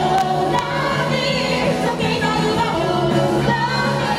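Live band playing an energetic song, with electric guitar, bass guitar and keyboard under a woman singing lead into a microphone.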